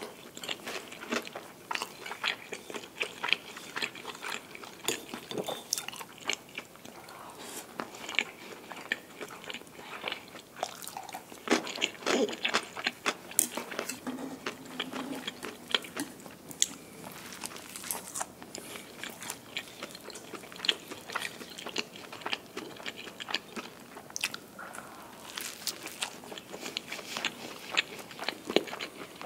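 Close-miked eating: crisp bites and chewing, with many sharp, irregular crunches, of crunchy snack food including a toasted sandwich with an egg-and-cabbage filling.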